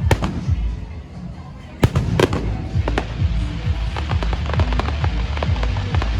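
Fireworks going off: sharp bangs, the loudest two close together about two seconds in, then a run of small crackles, over loud music with a steady low beat.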